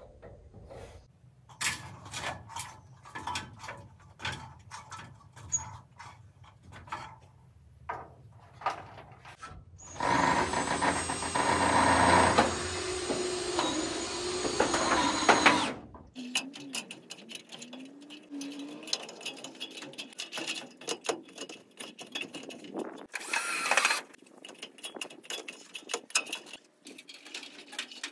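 Cordless drill driving a screw to fasten a rain gutter, its motor whining for about six seconds near the middle. Scattered clicks and knocks come before and after it.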